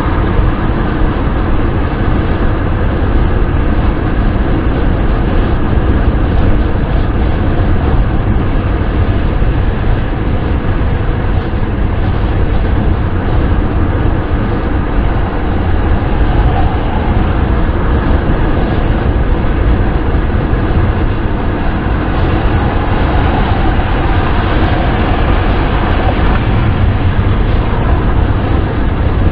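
Steady wind and road noise of a car driving at speed: an even rush over a deep rumble, with no change throughout.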